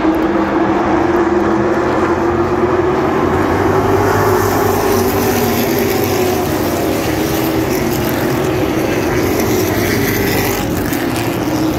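A field of Sportsman stock cars racing around a short oval track, their engines blending into one loud, steady drone that rises and falls slightly as the pack moves around the turn.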